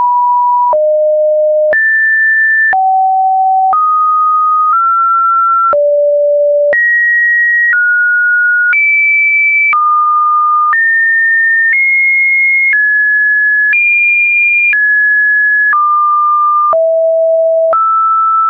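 Pure electronic sine tones, one at a time, each held steady for about a second before jumping to a new pitch, in an irregular sequence ranging from mid to high pitches. A faint click marks each change of tone.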